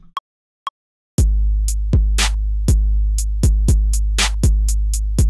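Two short clicks half a second apart, then about a second in a Maschine drum-machine loop starts playing: a trap-style beat with a deep sustained 808 bass and quick, unevenly spaced hi-hat and snare hits.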